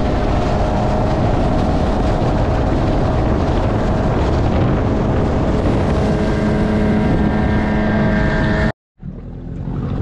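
Mercury outboard motor on an inflatable skiff running steadily at speed, with wake spray and wind. It cuts off suddenly near the end, and a quieter steady sound follows.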